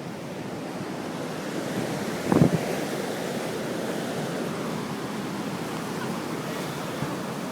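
Surf breaking and washing on the shore, a steady rushing, with some wind on the microphone. One brief dull thump stands out a little over two seconds in.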